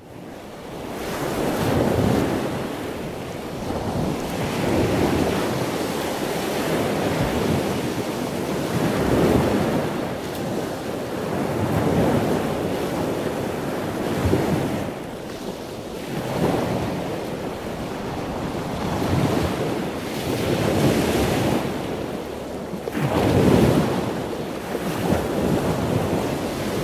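Ocean surf: waves washing in and out, swelling and fading about every three seconds.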